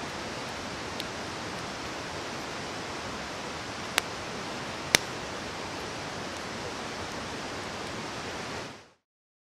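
Log campfire burning with a steady hiss and a few sharp crackling pops, the two loudest about four and five seconds in; the sound fades out near the end.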